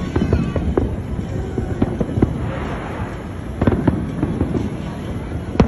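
Fireworks display: aerial shells bursting in a series of deep booms, with a hissing crackle in the middle and a sharp bang near the end.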